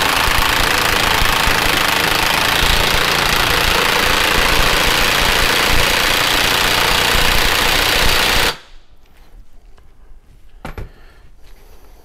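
Milwaukee Fuel cordless impact wrench hammering steadily as it runs the yoke nut down onto the transfer case output shaft, stopping abruptly about eight and a half seconds in. A few light clicks follow near the end.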